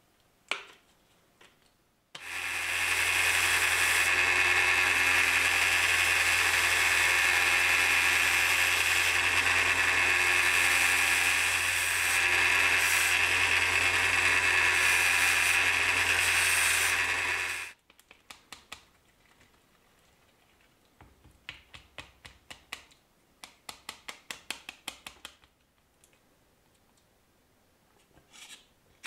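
Narrow-belt sander running with a low motor hum under the rasp of the abrasive belt as a small knife piece is ground on it; it starts about 2 s in and stops suddenly near 18 s. Afterwards come scattered clicks and a run of quick scraping strokes from hand work on the piece.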